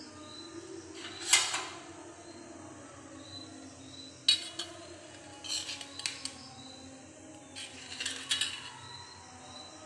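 Metal spoon clinking and scraping against a stainless steel plate in several short bursts, the loudest about a second in.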